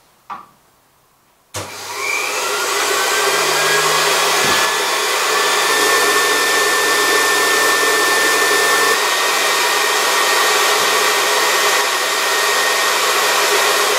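Dumore 44 tool post grinder switched on about a second and a half in, its whine rising as the motor spins up, then running steadily at full speed with a high whine over a steady rush of noise. It is a speed test of a chipped grinding wheel, spun up at full speed behind a wooden box to check that it will not burst.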